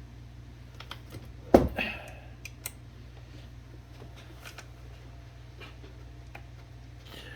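Light clicks of metal typewriter parts being handled, with one sharp metallic knock about a second and a half in that rings briefly, over a steady low hum.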